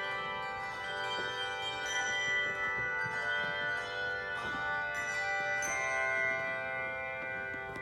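Handbell choir ringing sustained chords: the bells' tones overlap and hang on, with fresh chords struck a few times along the way.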